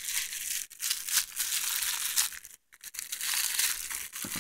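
Packaging crinkling and rustling in uneven spurts as new body-repair hand tools are handled and unwrapped.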